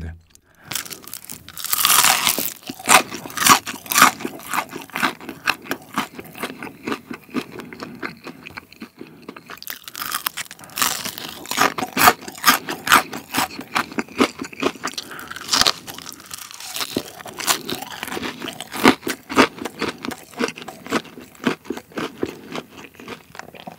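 Close-miked crunching and chewing of a crisp battered Korean vegetable fritter (yachae twigim) coated in tteokbokki sauce. There is a loud bite about two seconds in and more bites later, with crackling chews in between.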